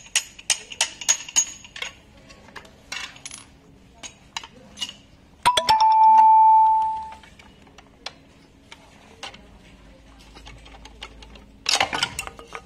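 Metal tools and scooter parts clinking and clicking as the electric scooter's lower folding assembly is taken apart. About five seconds in, one struck metal piece rings out loudly with a single clear tone that dies away over a second and a half. A short burst of rattling clicks comes near the end.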